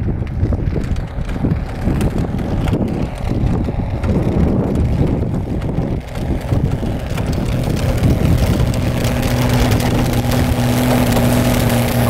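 Engine of a 1968 Bombardier tracked snow plow running as the machine drives closer through deep snow, its steady hum coming through more plainly from about two-thirds of the way in. Wind buffets the microphone throughout.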